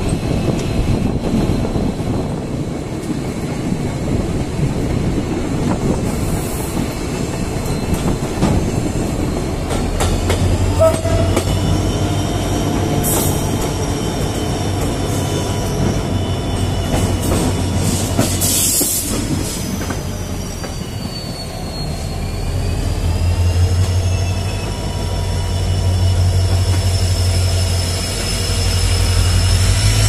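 EMD WDP4D diesel-electric locomotive, with its 16-cylinder two-stroke EMD 710 engine, hauling a passenger train, heard from the coach behind it: a steady rattle of wheels over the track. About ten seconds in, a low engine hum comes in and swells again later. Thin squeals of the wheels on the curving track glide up and down over it.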